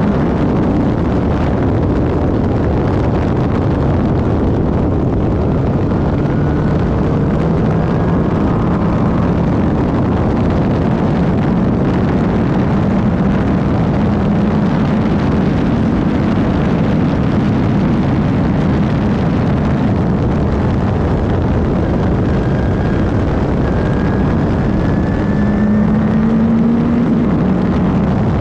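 Van Diemen RF01 Formula Ireland single-seater racing car at speed, its engine running hard under a dense roar. The engine pitch climbs steadily and drops back several times.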